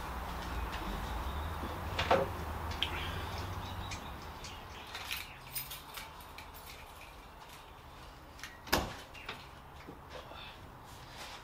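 Triumph Stag driver's door being unlatched and swung open, a loud sharp click of the latch a little under nine seconds in among smaller clicks and knocks. A sharp click about two seconds in, over a low hum that fades about four seconds in.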